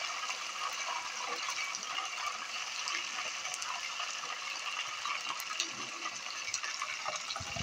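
Battered chicken pieces deep-frying in a pot of hot oil: a steady sizzle with many small crackles and pops.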